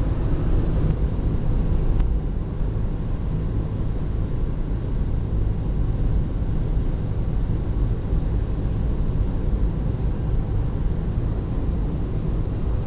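Steady road and engine noise heard inside a car's cabin while it cruises at highway speed, a constant low rumble.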